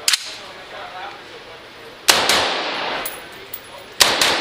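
Gunshots in a competition string: a couple of shots at the start, a loud shot about two seconds in, and two quick shots near the end, each followed by a long echoing tail.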